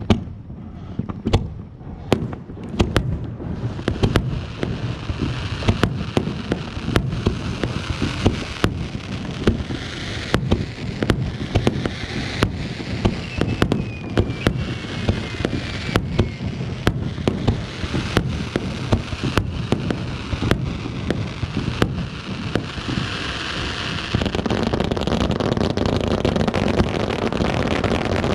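Fireworks going off: a rapid, irregular string of sharp pops and bangs over a crackling hiss, with a faint falling whistle a little before halfway.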